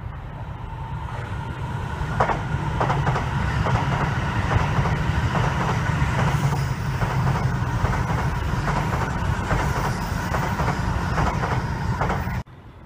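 E7/W7-series Shinkansen passing close by: a steady low rumble that builds over the first two seconds, with a run of wheel clacks. The sound cuts off suddenly near the end.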